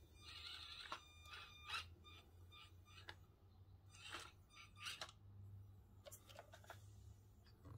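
Faint sound of a tiny Axial SCX24 crawler: its small electric motor whines briefly near the start, then come scattered light clicks and knocks as the truck climbs over wooden logs.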